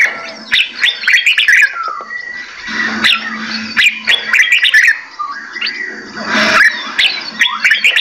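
Several caged songbirds chirping and singing at once: a busy tangle of short whistled notes and sharp calls, many of them quick downward sweeps.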